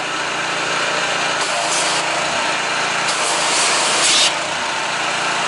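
Pressure washer running steadily, its engine drone under the hiss of the water jet; the hiss grows sharper twice, for about half a second a little over a second in and for over a second past the three-second mark.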